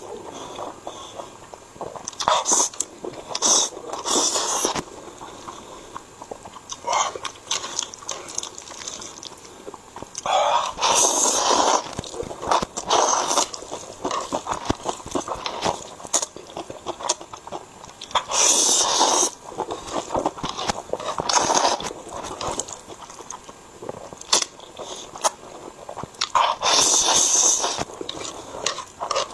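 A man slurping thick, saucy fried noodles in loud, hissing pulls every few seconds, the longest lasting two to three seconds, with wet chewing between them.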